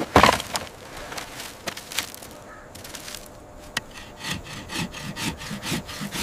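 Dry sticks dropped onto the ground with a loud clatter, then a wooden stick rubbed hard back and forth across dry wood, about four strokes a second, working up heat to make fire by friction.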